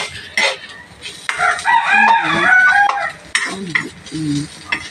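Metal spatula scraping and tapping in a stainless steel wok as flaked tuna is stirred. A rooster crows, one long call of about two seconds, starting a little over a second in, and is the loudest sound.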